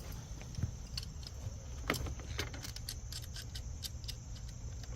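Scattered light metallic clicks and rattles of copper line-set fittings and hand tools being handled, over a low steady rumble.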